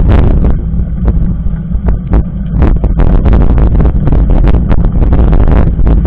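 Heavy wind buffeting on the microphone of a mountain bike's handlebar-mounted camera, with frequent irregular sharp rattles and knocks as the bike rolls over a dirt road.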